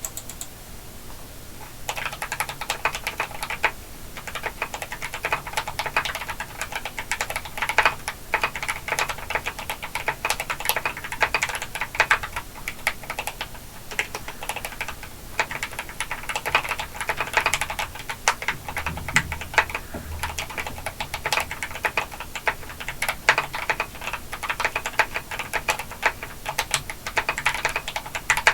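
Continuous fast typing on a TOM980 mechanical keyboard with lubed Akko Starfish switches. The keyboard is dampened with a silicone pour, felt and wheel weights, and has PTFE-taped stabilizers. The keystrokes are light for about the first two seconds, then run as a fast, steady stream of clicks.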